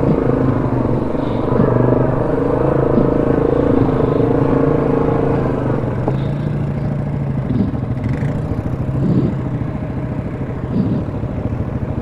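ATV engine running steadily at low revs in low range on a rough trail, its pitch dropping about halfway through. A few short knocks and clatters in the second half.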